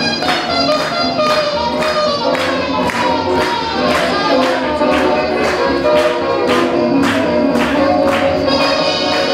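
Swing music playing for a balboa dance, with a steady beat about twice a second under a wavering melody line.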